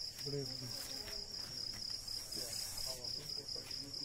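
Crickets chirping in an even pulse about three times a second, with faint voices in the background.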